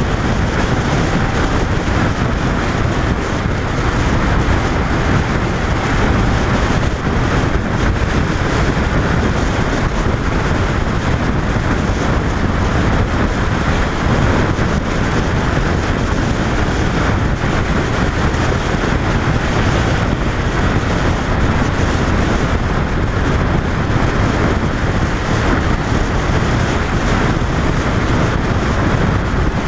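Steady wind rush over the microphone of a camera mounted on a 2005 Honda VFR800 riding at road speed, with the bike's V4 engine running underneath.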